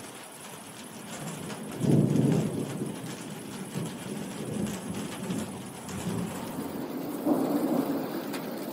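Heavy rain falling steadily with rumbling thunder: a loud rumble about two seconds in and another shortly before the end.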